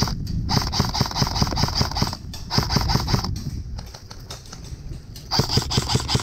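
Running footsteps on grass, with gear and the camera jostling, in a fast even train of thumps. The thumps ease off about four seconds in and pick up again near the end.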